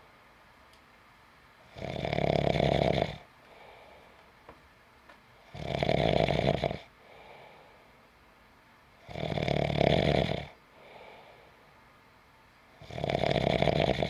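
A person snoring in steady sleep: four loud snores about every three and a half seconds, each followed by a much fainter breath. The last snore is cut off at the end.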